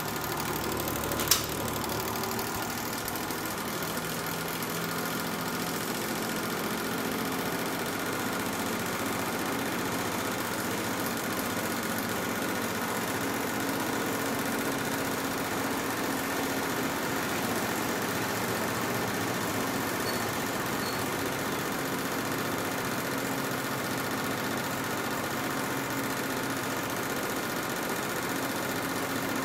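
1960s Cory Fresh'nd Aire 20-inch box fan running: a steady rush of air over its motor hum. A sharp click about a second in, after which the hum rises in pitch over several seconds and then holds steady.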